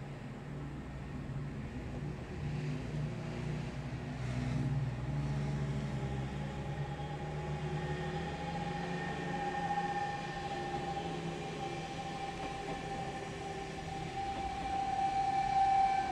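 Electric passenger train running on the station tracks: a steady high whine from its traction motors, drifting slightly down in pitch, grows louder from about halfway through. Under it runs a low hum that fades near the end.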